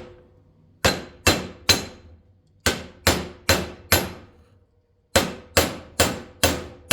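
Hammer lightly tapping new lug studs into a wheel hub flange to start them in their holes: sharp metallic strikes in runs of three to five, about two a second, each with a short ring.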